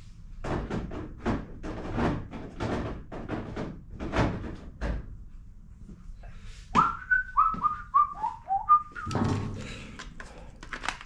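A person whistling a short tune of about seven quick notes that step downward, about halfway through. Before it comes a run of irregular knocks, and a few more come near the end.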